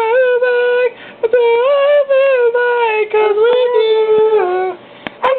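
A high voice singing wordless held notes that bend up and down, in two long phrases with short breaks about a second in and near the end.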